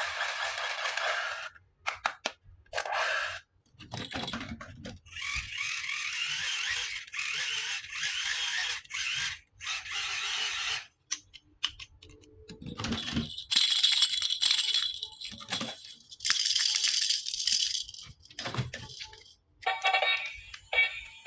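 Small plastic toy pieces and packaging being handled, rattling and crinkling in separate bursts. Near the end a toy's electronic tune starts playing.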